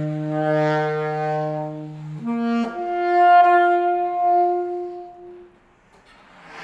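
Slow instrumental music: a saxophone holding long notes over a low sustained note that drops out about two seconds in, after which the saxophone moves higher and fades out near the end.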